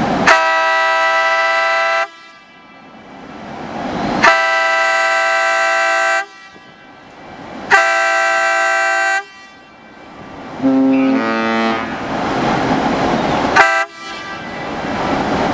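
A large cruise ship's whistle (MSC Orchestra) sounding three long blasts on departure from the berth, each about one and a half to two seconds with a pause between. A quieter series of lower tones that step in pitch follows, then one short blast near the end.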